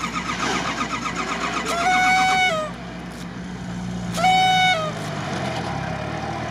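A vehicle horn honks twice, first for about a second and then more briefly, over the steady running of an off-road vehicle's engine.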